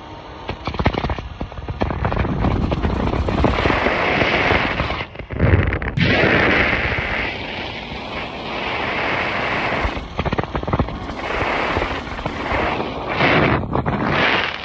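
Wind buffeting the phone's microphone on a moving motorbike: a loud, irregular crackling rush that drops out briefly a few times.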